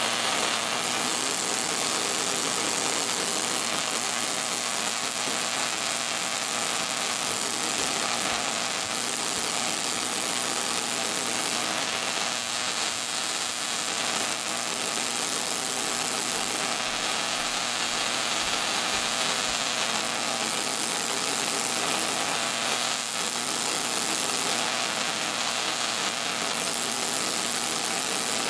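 Solid-state Tesla coil running at full power, its spark arcing continuously from the breakout point to a grounded wire with a steady, harsh electrical buzz.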